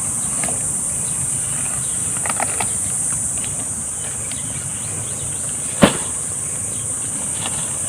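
Steady high-pitched insect drone, with a few light clicks about two and a half seconds in and one sharp knock about six seconds in.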